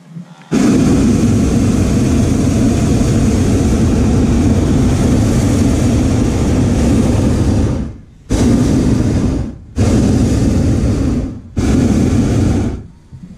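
Hot air balloon's propane burner firing: one long blast of about seven seconds, then three shorter blasts in quick succession, each starting and cutting off abruptly.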